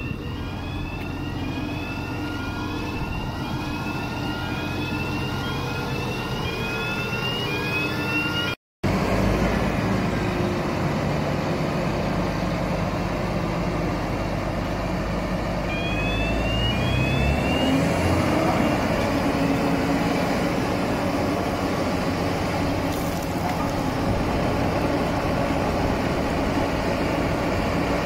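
Mobile cone crusher's diesel engine running steadily, with a repeating high rising chirp over it through the first third. The sound cuts out for a moment about nine seconds in, and the chirps return briefly a little past halfway, alongside a short rising whine.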